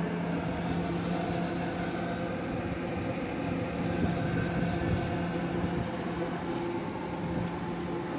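R211 subway train standing at the platform, its onboard equipment giving a steady, even hum.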